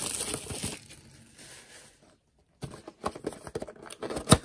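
Crinkling and tearing of a plastic trading-card pack wrapper being ripped open, fading out within the first second. After a brief dead silence come crackling handling sounds of a small cardboard card box and a sharp click near the end.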